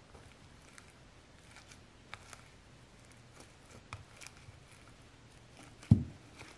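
Hands mixing and handling slime: faint scattered clicks and ticks, with a sharp thud about six seconds in.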